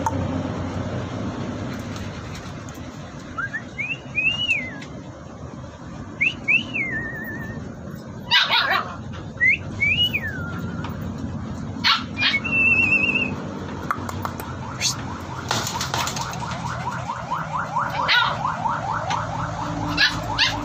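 Dogs whining, with several high calls that rise and fall, a few short sharp yelps or barks, and quick rhythmic sounds near the end.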